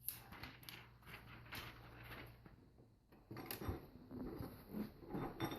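Faint crackling and rustling of the protective plastic film being peeled off a replacement laptop LCD panel, with louder knocks and scrapes of the panel being handled from about three seconds in.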